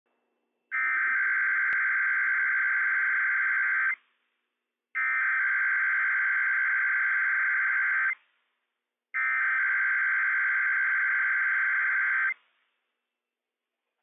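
Emergency Alert System SAME digital header from NOAA Weather Radio, sent for a Required Weekly Test: three harsh, buzzing bursts of high-pitched data tones. Each burst lasts about three seconds, with about a second of silence between them, and together they mark the start of an EAS message.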